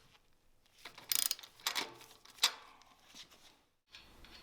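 Wrench working the 15 mm front axle nuts loose on a pedicab's bicycle-type front wheel: a few short metallic clicks and rasps, spaced apart.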